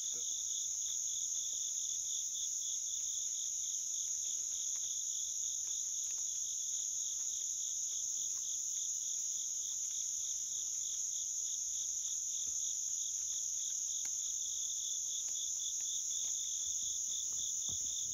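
Night insect chorus: a steady, high, unbroken trill, with a lower call pulsing quickly and evenly beneath it.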